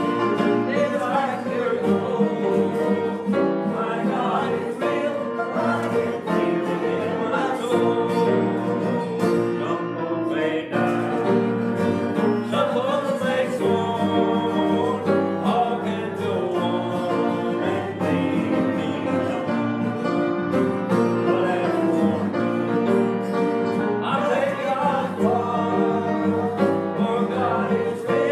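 A small congregation singing a gospel hymn together, with acoustic guitar accompaniment.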